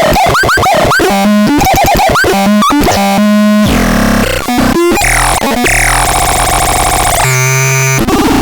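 Electronic synthesizer making a run of effect sounds: quick repeated upward-chirping blips, then pulsing buzzy tones, a burst of noise, falling high-pitched sweeps, and a steady buzzy held tone near the end.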